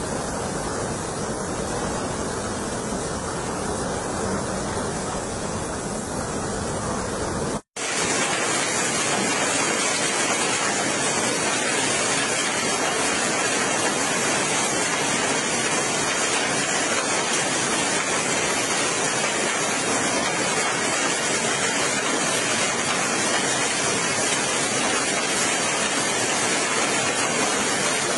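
Heavy rain pouring steadily as a dense hiss. After a split-second dropout about eight seconds in, rain mixed with hail falls on a tiled roof, a brighter, harsher hiss.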